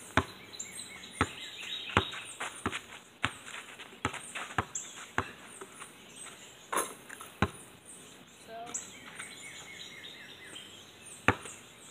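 A basketball bouncing on hard ground: about a dozen sharp thuds at uneven intervals, some louder than others. Birds chirp all the while.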